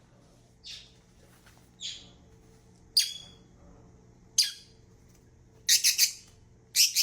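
Parrot giving short, sharp calls: two softer ones early, then louder single calls about three and four and a half seconds in, and a quick run of four calls near the end.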